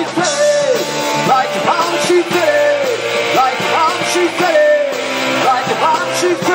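Live rock band playing a loud funk and indie-rock number on drum kit, electric guitars and electric bass.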